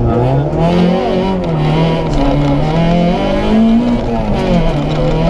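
Citroën Saxo VTS rally car's engine heard from inside the cabin, revving hard as the car pulls away from the stage start. Its pitch climbs, drops at a gear change about a second in, climbs again and drops at another shift a little after four seconds.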